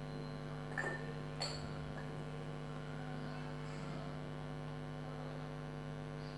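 A steady electrical hum with many evenly spaced overtones, with two faint clicks about a second and a second and a half in.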